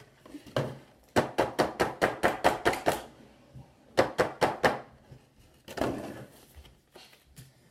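A quick run of sharp taps, about a dozen in under two seconds, then a short pause and four more taps, followed by a brief rustling scrape.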